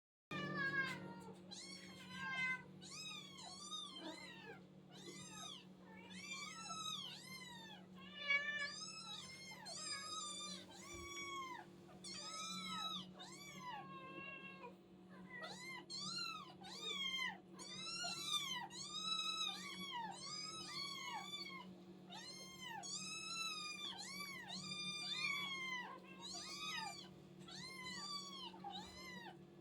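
Hungry kittens meowing nonstop, many high-pitched meows overlapping, each rising and then falling in pitch. A steady low hum runs underneath.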